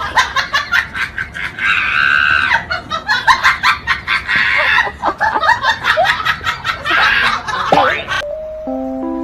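A person laughing hard in rapid bursts, then cut off abruptly near the end by a few held music notes.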